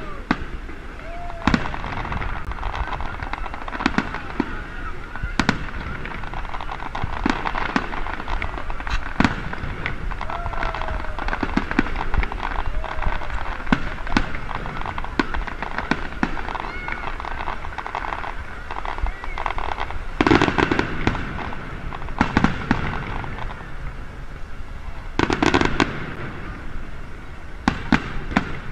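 Aerial fireworks display: a continuous run of shell bursts and crackle, with louder clusters about twenty and twenty-five seconds in, over the voices of a crowd.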